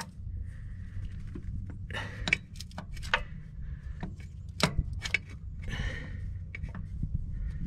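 Irregular metal clicks and clinks from a 3/8-inch ratchet, socket and extensions being fitted and worked on a hidden starter bolt, with a little rustling, over a steady low rumble.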